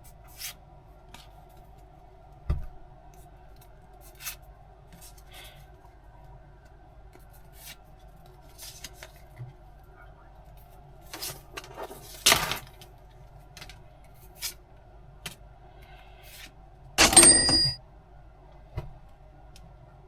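Handling sounds from unboxing a Pokémon tin box: scattered light clicks and taps, a louder rustle or scrape about twelve seconds in, and a short metallic clatter with a faint ring about seventeen seconds in, the loudest sound.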